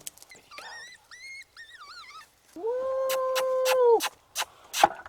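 Coyote-style calls: three short, wavering, high-pitched whines, then one long, steady howl held for about a second and a half. Sharp clicks run through the second half.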